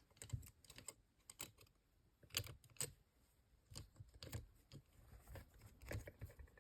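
Faint, irregular metal clicks and light scrapes of a turning tool and a pick wire working in the keyhole of a large lever padlock.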